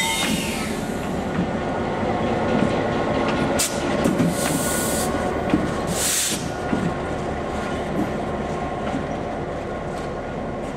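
Diesel road-switcher locomotive rumbling steadily as it rolls slowly past at close range, with a few short bursts of hiss in the first half.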